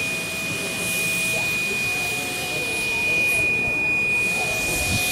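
Steam locomotive hissing as it vents steam, with a steady high-pitched whine throughout. The hiss thins briefly in the second half.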